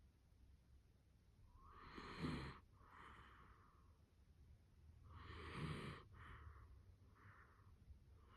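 A sleeping dachshund snoring: two snores about three and a half seconds apart, each with a low buzz at its peak, followed by a softer breath.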